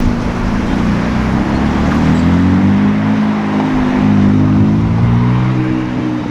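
Supercar engine running at a low, steady rev, its pitch drifting gently up and down.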